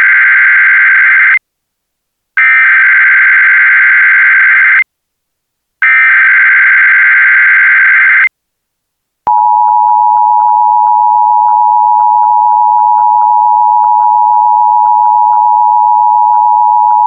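Emergency Alert System tones: the end of the first SAME header data burst and then two more, harsh buzzing warbles about two and a half seconds each with a second's gap between them, followed by the EAS two-tone attention signal, a steady shrill dual tone held about eight seconds before cutting off.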